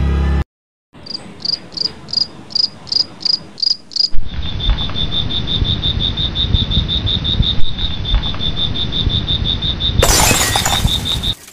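Crickets chirping as a night ambience. First come slow, evenly spaced chirps about three a second, then a faster, steady pulsing trill over a low rumble. About ten seconds in a harsh, crash-like burst joins for about a second, then the sound cuts off abruptly.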